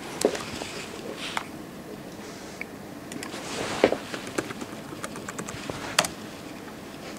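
Scattered light clicks and taps of laptop keys being pressed over quiet room noise, with a sharper click about six seconds in.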